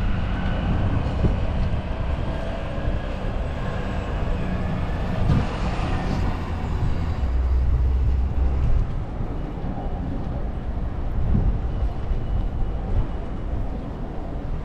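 City street traffic: vehicles passing with a continuous low rumble.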